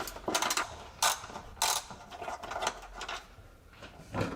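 Hand ratchet clicking in several short, irregular spells as a fastener is turned out.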